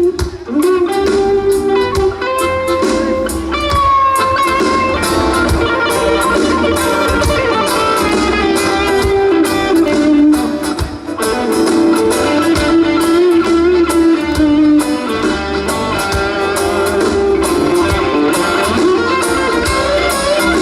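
Live blues-rock band playing an instrumental break: a lead guitar line with bent, held notes over a steady drum beat and bass.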